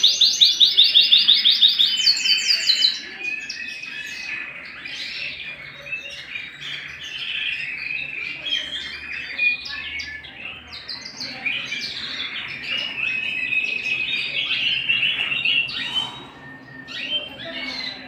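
Domestic canary singing: a loud run of rapidly repeated high notes for about the first three seconds, then quieter, varied warbling and chirps.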